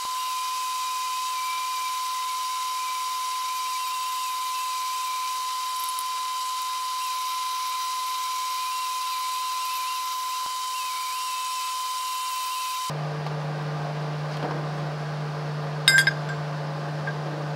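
Cordless die grinder with a small flap disc grinding a welded steel tube corner: a steady, high-pitched whine. About thirteen seconds in, the whine gives way to a lower steady hum, and a sharp clink comes near the end.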